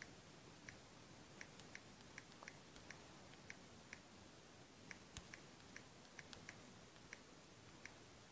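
Faint, irregular taps of typing on a smartphone's on-screen keyboard, about two to three short clicks a second, over a low hiss.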